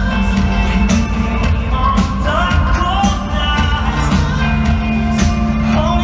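Live band playing a pop-rock song: drum kit, guitar and heavy bass, with a male voice singing from about two seconds in. Heard from the audience in a large arena, with booming low end.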